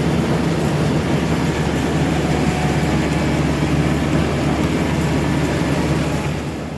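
Combine harvester running steadily as it works through the paddy, its engine hum under a dense mechanical rumble and clatter; it eases slightly near the end.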